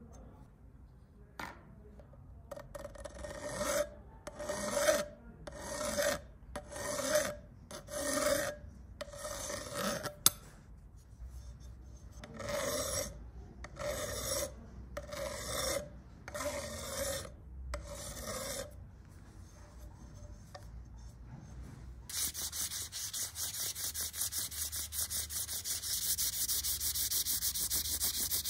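A hand file drawn across a brass rod held in a vise, in slow, even strokes about one a second, with a short pause and a single sharp click partway through. About three-quarters of the way in, the filing gives way to fast, continuous rubbing of an abrasive cloth strip worked back and forth around the brass.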